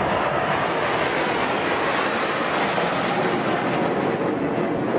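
Jet aircraft of an aerobatic display team flying overhead trailing coloured smoke: a steady, even rushing engine noise with no breaks.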